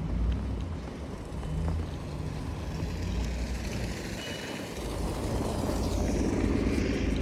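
A motor vehicle passing on the street, its noise swelling over the last two seconds, over a steady low rumble.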